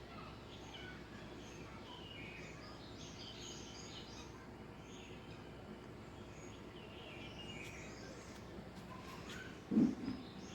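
Small birds chirping and twittering on and off over a steady outdoor background hiss. Near the end comes one brief, louder low sound.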